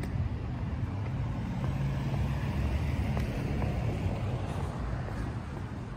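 A motor vehicle going by on the street: a low engine rumble with road noise that swells through the middle and eases off near the end.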